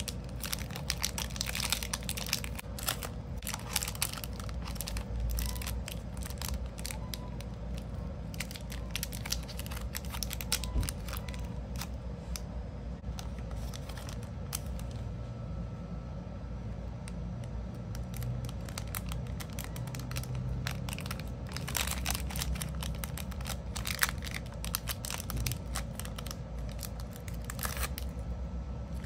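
Clear plastic cellophane bag crinkling and crackling as it is handled and a bar of soap is slipped into it, in dense clusters of sharp crackles that thin out for several seconds in the middle, over a steady low hum.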